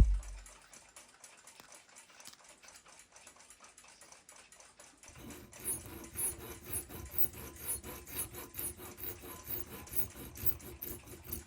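A sharp snip right at the start as the excess metal of a clock seconds hand is cut off. After a few quiet seconds, a small hand file works the hand in short, even strokes, about two to three a second.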